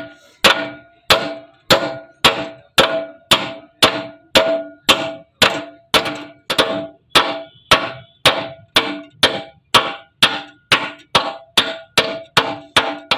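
Hammer striking a metal part of a sugarcane juicer machine, steady blows about two a second that quicken slightly near the end; each strike clangs and rings briefly.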